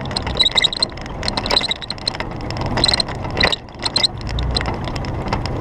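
Mitsubishi Pajero's 3.0 V6 engine running steadily as the vehicle drives slowly over a rutted dirt track, with frequent short knocks and rattles from the bumpy ride.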